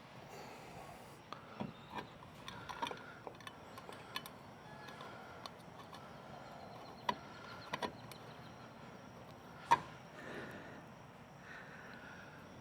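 Scattered clicks, taps and small knocks of metal latch parts and hand tools being handled while an RV compartment latch is put back together. The loudest knock comes near the end.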